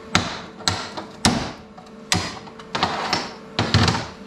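Steel hammer striking a welded steel piece held in locking pliers: about six sharp metallic blows, each with a brief ring. The weld joining the piece has been gouged out with a plasma cutter, so the blows knock it apart.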